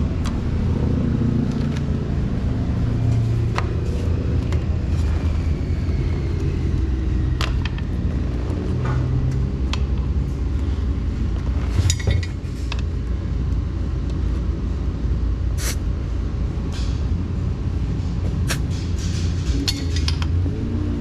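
A car running, with a steady low engine and road rumble and scattered sharp clicks and rattles.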